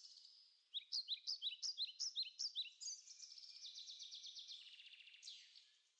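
Faint birdsong: a quick run of short high chirps, about four a second, then softer twittering that fades out.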